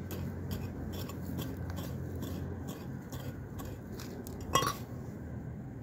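Small hand hoe chopping and scraping into dry, stony soil: a quick, irregular run of crunchy strikes. About three-quarters through comes one louder knock that rings briefly.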